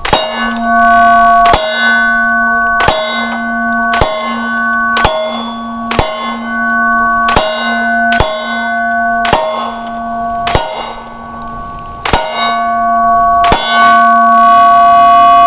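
A Polymer 80 Glock 19 9mm pistol firing a slow string of about a dozen shots, roughly one every second or so. Each shot is followed by a long metallic ringing that carries on until the next shot.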